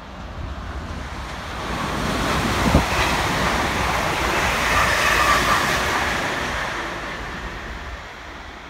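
A train passing through the station, its rushing wheel-on-rail noise swelling over the first couple of seconds, holding, then fading away near the end, with a single sharp knock early in the loudest part.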